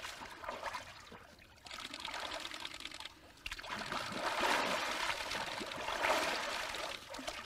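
Water splashing and streaming in an ice-hole pool as a bather ducks under and comes back up, water pouring off him; louder from about halfway through.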